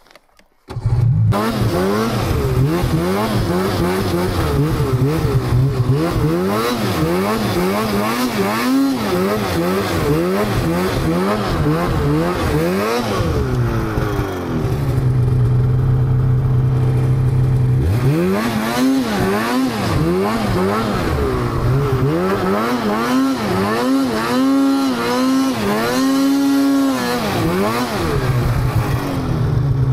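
Snowmobile engine revving up and down over and over as the rider works the throttle through deep snow, with a steadier, even-pitched stretch midway. The engine comes in loudly about a second in.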